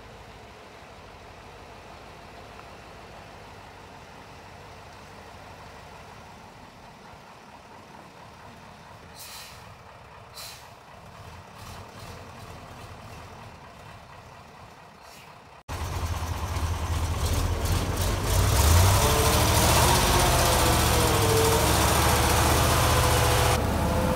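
Magirus-Deutz 256 truck running, heard faint at first with two short hisses about two-fifths in, then suddenly much louder from close beside the rear wheels: the diesel engine's deep rumble with a wavering note, and the tyres rolling over the leaf-covered track.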